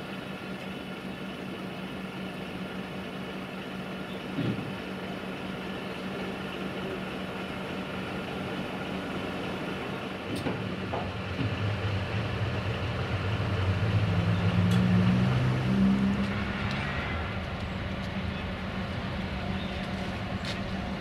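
A vehicle engine runs steadily with a low hum, swelling louder for several seconds in the middle before settling back. A couple of sharp metal clinks come from chains and tools being handled.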